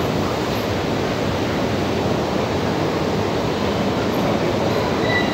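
Steady noise of a long escalator running down through a metro station shaft, with the station's din echoing around it. A brief high tone sounds near the end.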